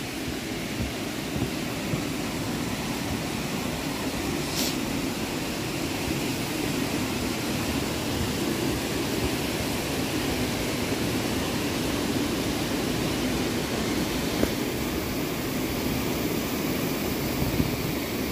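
Steady rushing of water through a gorge: an even noise that grows slightly louder over the first few seconds.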